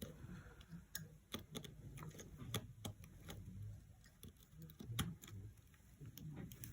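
Faint, irregular light clicks and ticks of small repair tools, a precision screwdriver and tweezers, working inside an opened iPhone 7 as a screw is taken out of the logic board.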